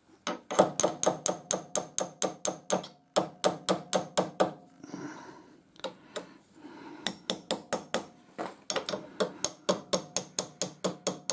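A small hammer tapping a steel pin punch set in the pin hole of a lathe live centre's threaded end collar, driving it round to unscrew it in place of a pin spanner. Quick runs of light, ringing metal-on-metal taps, about five a second, with a pause of a couple of seconds about halfway through.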